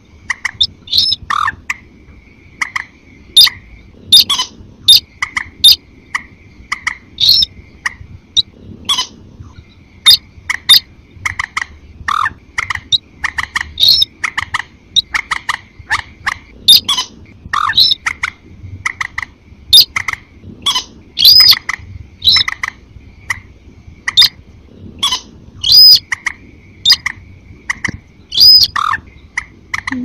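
Looped bird-lure recording of rail calls, sintar mixed with mandar: a dense run of short, sharp calls, one or two a second, over an on-and-off steady high whistle.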